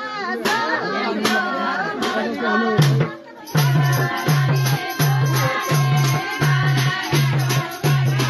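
Women's voices singing a Nepali folk song; about three and a half seconds in, after a brief drop, a madal hand drum comes in with a steady low beat, a little under two beats a second, under the singing.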